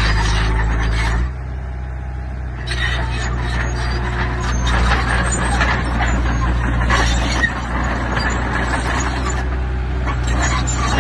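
Heavy diesel earthmoving machinery working: a steady engine drone with dense metallic clatter. The sound drops a little over a second in and builds back up about three seconds in.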